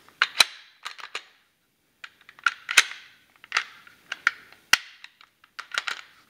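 Sharp clicks and clacks from a Glock 19 Gen 3 slide and its small parts being worked by hand to shake the ejector parts loose, in irregular clusters of one to three clicks.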